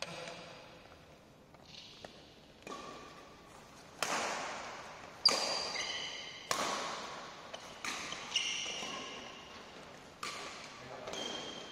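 Badminton rackets striking the shuttlecock in a doubles rally: sharp cracks about once a second, each ringing on in the hall's echo, with short high squeaks of shoes on the court between hits.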